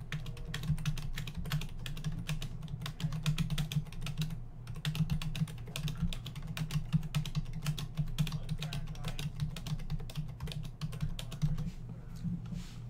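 Fast typing on a low-profile computer keyboard: a quick run of key clicks with a brief pause a little before the middle, over a steady low hum.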